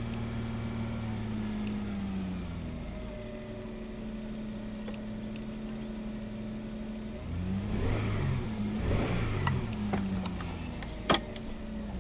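Toyota 1MZ-FE V6 running with an intermittent cylinder 5 misfire (code P0305). It runs steadily at first, then the engine speed dips and recovers a couple of times near the end. A single sharp click comes just before the end.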